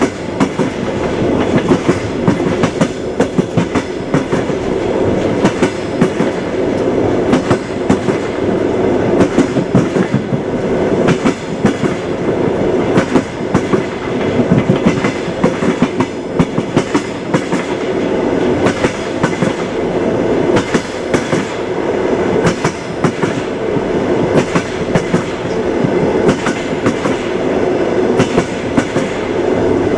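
Train wheels clattering over the rail joints, a steady rolling rumble broken by many quick clicks, several a second.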